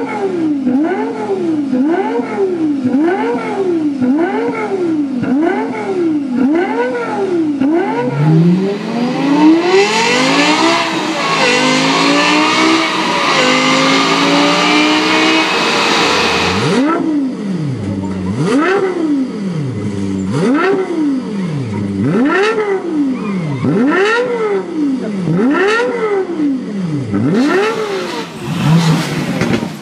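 Lexus LFA's 4.8-litre V10 being revved. First comes a string of quick free-revving blips, about one every 0.7 s. About 8 s in, a long full-throttle dyno pull climbs in pitch for several seconds, and after it come more free revs about a second apart, each rising and falling sharply.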